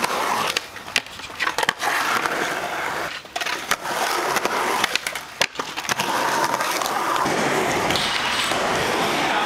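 Skateboard wheels rolling on a concrete bowl, with repeated sharp clacks and knocks of the board. About six seconds in this gives way to a steady rolling sound of wheels on a wooden ramp.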